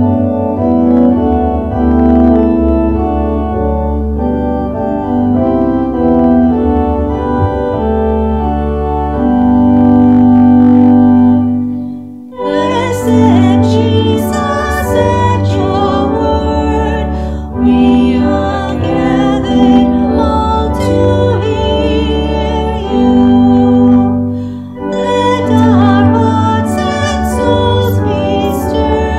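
Church organ playing a hymn in slow, sustained chords over a pedal bass. After a short break about twelve seconds in, a singing voice joins the organ.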